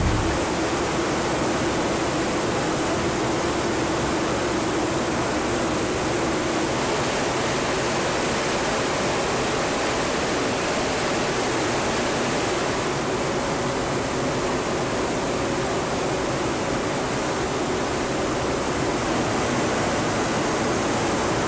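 Engine and airflow noise inside the cargo hold of a military transport aircraft in flight: an even, steady rush with a faint low hum in it.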